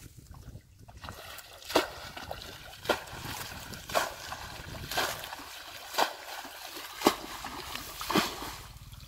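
Muddy water splashing as a plastic basin scoops it up and flings it out of a shallow ditch. There are seven splashes in an even rhythm, about one a second: bailing out a dammed-off stretch of ditch.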